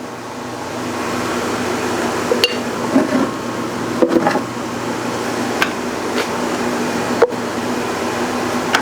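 Metal lathe running a light facing cut on a cast pulley: a steady hum under a cutting hiss, with four sharp clicks about a second and a half apart.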